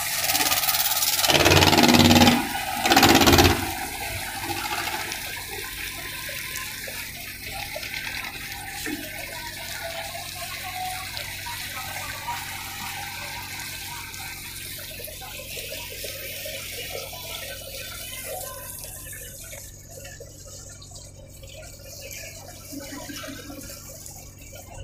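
Water rushing and splashing along a moving boat's hull over the steady low hum of its engine; the rushing surges loudest in the first three seconds or so, then settles and slowly fades.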